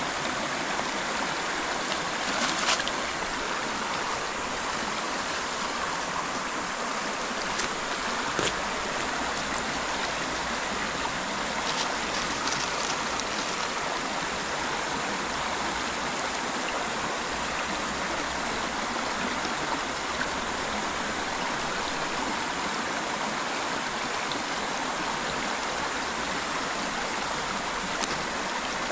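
Creek water running, a steady even rush, with a few brief sharp clicks here and there.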